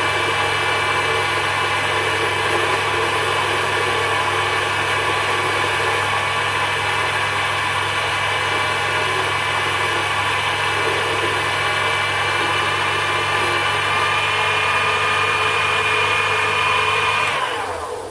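Sherline bench lathe running steadily with a constant motor whine and hum while turning a hard steel bar with a carbide tool. Near the end it is switched off and winds down, the whine falling in pitch as it fades out.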